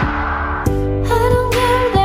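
Background music: a pop song with a steady beat, a bass line and a sung melody line.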